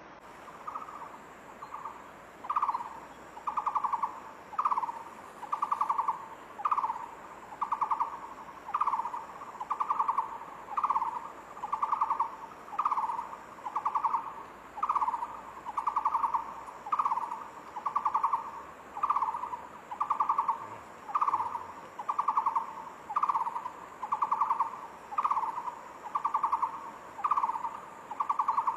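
Takur bukit, an Indonesian barbet, calling steadily: a long, regular series of rolling, trilled hooting notes about one a second, every other note opening with a quick downward slide.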